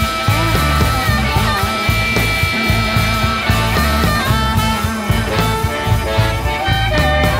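Electric blues band playing an instrumental passage with no vocals: sustained, bending lead notes over a steady bass-and-drum groove.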